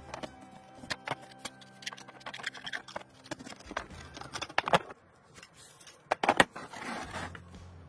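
Rusty rifle cartridges being pushed one after another out of an old AK-47 magazine, clicking and clinking against each other and the table, with a few louder knocks in the second half.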